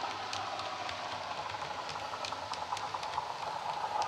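Model Class 117 diesel multiple unit's DCC sound decoder playing the diesel engine running under power through its speakers, with light scattered clicks over it. It grows louder near the end as the model comes closer.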